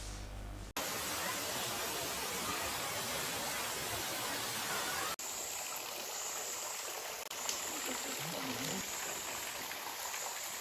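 Flowing water from a forest stream and waterfall, a steady rushing hiss. The sound changes abruptly twice, about a second in and about five seconds in.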